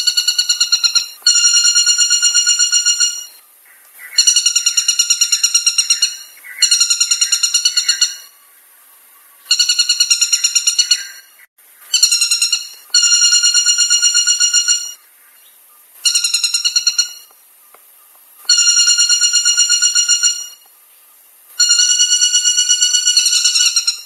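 White-bellied woodpecker calling: rapid trills of clear, ringing notes, delivered in about ten bursts of one to two seconds each with short pauses between.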